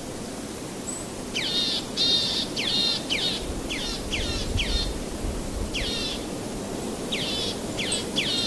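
A bird chirping: a run of about a dozen short chirps, each falling in pitch, over a steady background hiss.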